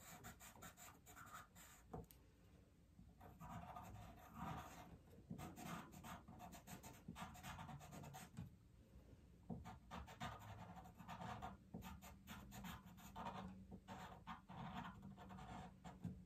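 Charcoal pencil scratching on drawing paper in faint, quick runs of short strokes while line details are drawn in, with brief pauses between runs.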